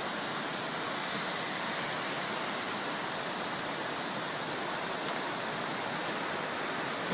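Steady, even hiss of heavy rain together with the rush of fast-flowing floodwater.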